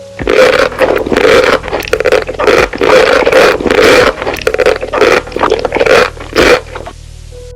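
Close-miked chewing of crunchy food: a run of loud crunches, about two a second, that stops near the end.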